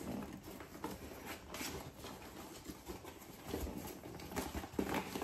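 Faint, scattered scratches and ticks of fingers picking at the tape and flaps of a cardboard box.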